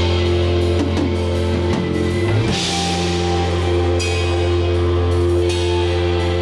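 Live rock band: electric guitars and bass holding a steady, ringing chord while the drummer hits repeated cymbal crashes, with a rising slide in the low end about two seconds in.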